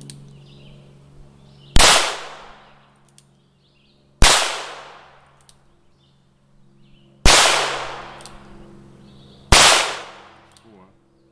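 Four gunshots from a .22 caliber firearm, fired singly at uneven intervals of two to three seconds. Each is a sharp crack with a short echoing tail.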